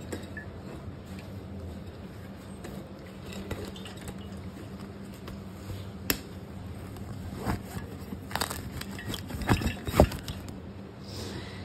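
Rustling, knocks and clacks of a fabric school backpack being packed with a lunch box and water bottle and zipped. The sharpest clacks come about nine to ten seconds in.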